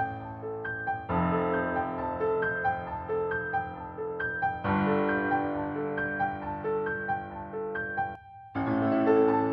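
Instrumental background music led by piano: a gentle pattern of short repeated notes over held chords, with the chord changing about one second and about five seconds in. The music breaks off briefly about eight seconds in, then picks up again.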